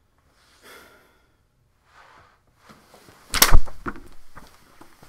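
A man getting up abruptly from an office chair at a table: a sudden loud clatter a little over three seconds in, followed by a few smaller bumps.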